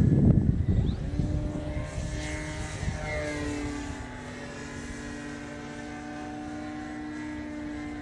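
Radio-controlled model airplane's motor droning overhead, its pitch dropping a little about three seconds in as it flies past. Wind buffets the microphone in the first second.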